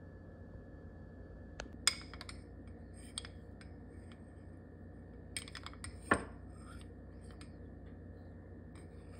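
A spoon stirring in a glass of oat milk with soaked chia seeds and frozen mango, making scattered light clinks against the glass. There is a cluster of them about two-thirds of the way through, over a steady low hum.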